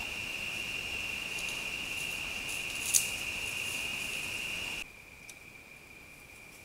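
Night insects, crickets, trilling in a steady unbroken drone over hiss, picked up by a trail camera's microphone, with one sharp click about three seconds in. Shortly before five seconds the sound cuts to a quieter recording in which the insect drone is fainter and slightly lower.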